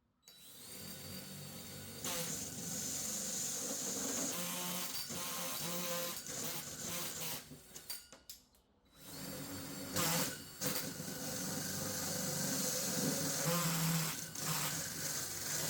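A power drill driving a hole saw through ceiling paneling to cut holes for puck lights: two runs of steady whirring with a short pause about eight seconds in.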